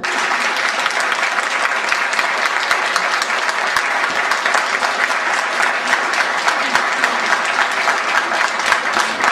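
An audience applauding: many hands clapping in a dense, steady patter that starts abruptly.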